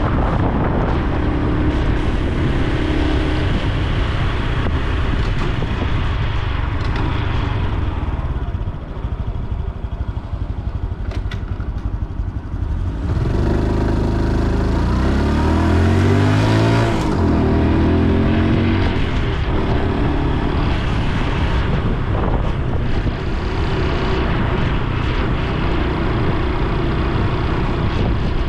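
Honda Super Cub C125's single-cylinder engine and exhaust while riding, over a steady rush of wind. The engine eases off about eight seconds in, then revs climb strongly about halfway through before settling again.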